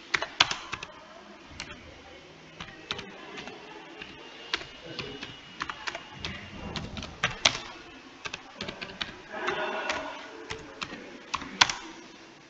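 Typing on a computer keyboard: irregular keystrokes at an uneven pace, a few key presses much louder than the rest.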